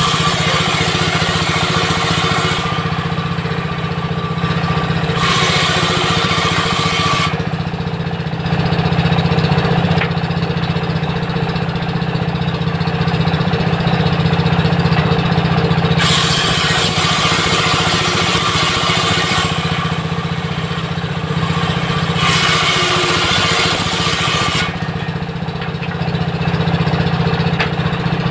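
Diesel-engine-driven circular table saw: the 16 HP diesel engine runs steadily, and four times, for two to three seconds each, the blade rips through wood with a hissing whine over the engine drone.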